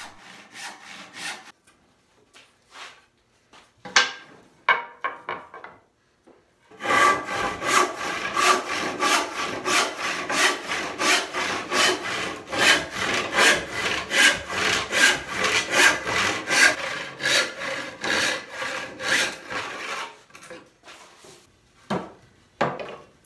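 Hand rip saw ripping a walnut board clamped upright in a bench vise: a steady run of back-and-forth saw strokes, two or three a second, that stops about 20 seconds in. A few wooden knocks follow near the end as the cut pieces come free.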